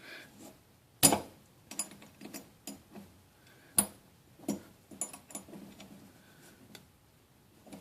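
Irregular sharp metallic clicks and taps of an Allen wrench working in the handle set screw of a Delta faucet, which is stuck too tight to turn. The loudest click comes about a second in.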